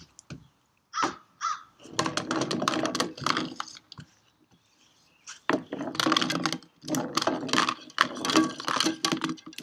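Coffee can with rocks inside rolling across wooden deck boards, the rocks clattering against the can as it rolls. The clatter comes in two long runs of rapid knocks with a short pause between them.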